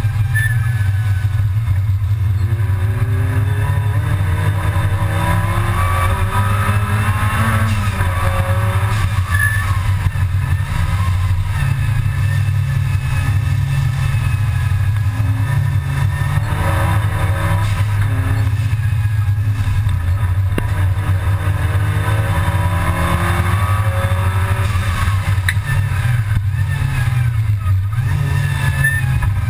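Race-prepared Mk II Golf GTI's supercharged G60 four-cylinder engine heard from inside the stripped cabin at race pace, its pitch climbing as it revs out and dropping back at each gear change or lift several times over, under a constant heavy rumble.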